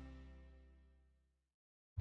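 Background music fading out on held notes, dying away to silence about a second and a half in.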